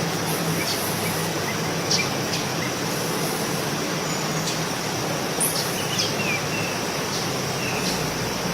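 Steady outdoor background noise with a faint low hum, and a few short, faint bird chirps scattered through it.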